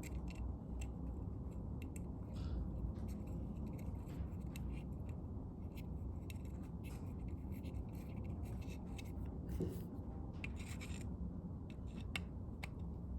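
Scattered small clicks and scrapes of metal parts and screws being handled and fitted as a truck door handle assembly is put back together, over a steady low hum.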